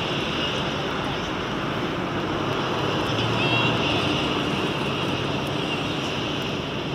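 Steady outdoor traffic noise: a constant rumble and hiss of passing road vehicles, with a steady high-pitched hum over it.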